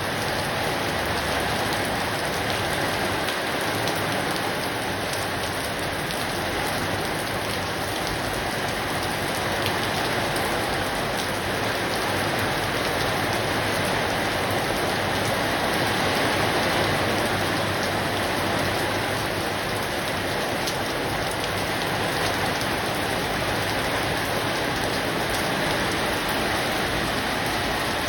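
Steady rain falling, an even continuous hiss with no let-up.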